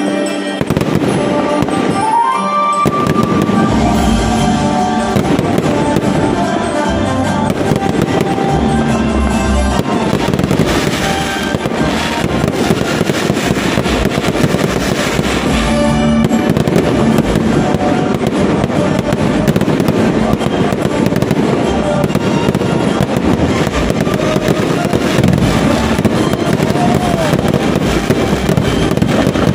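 Fireworks display: a dense, continuous barrage of rockets and aerial shells launching, bursting and crackling, with music playing under it.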